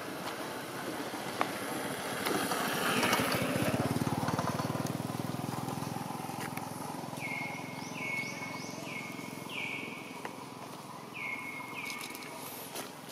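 A motorbike engine passes on a nearby road, swelling to its loudest about three to five seconds in and then fading. Later comes a run of about six short chirps, each falling quickly in pitch and then holding briefly.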